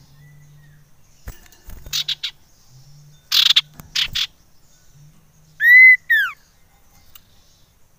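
Common iora calling: a few short harsh notes, then two loud rising-and-falling whistles about six seconds in.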